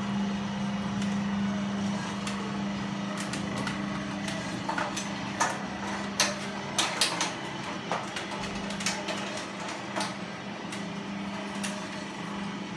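Small coffee roasting machine running, its electric drive motor giving a steady low hum. Irregular sharp clicks and knocks come in from about three seconds in.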